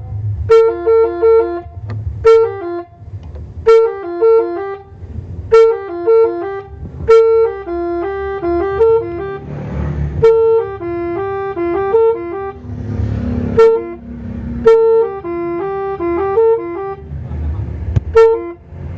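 A bus's telolet multi-tone air horn playing its melody over and over: short phrases of quick notes stepping between a few pitches, starting every second or two, with longer runs of notes near the middle and two-thirds of the way through. A low rumble fills the gaps between phrases.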